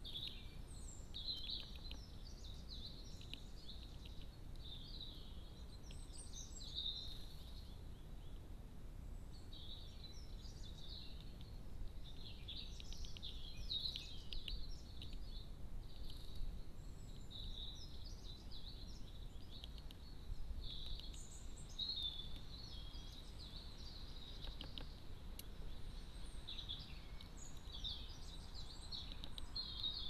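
Wild garden songbirds singing and calling in short, high phrases, one after another, over a steady low background rumble.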